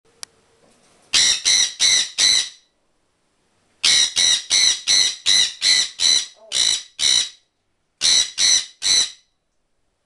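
A parrot screeching: loud, harsh calls repeated about three times a second, in a run of four, then about ten, then three.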